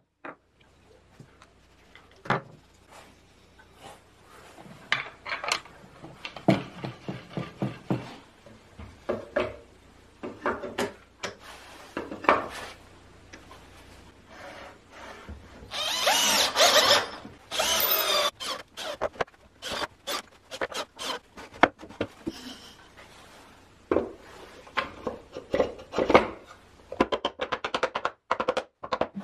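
Wooden workpieces and hand tools being handled, with a scatter of knocks, clicks and rubbing. A power tool runs for a few seconds about halfway through and is the loudest sound.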